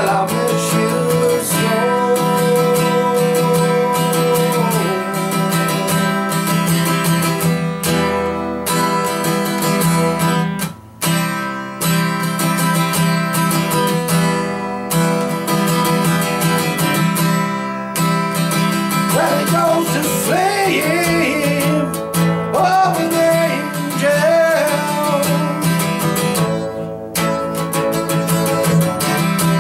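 Acoustic guitar strummed steadily, with a man's voice singing long held notes about a second in and again around twenty seconds in. The strumming breaks off briefly about eleven seconds in.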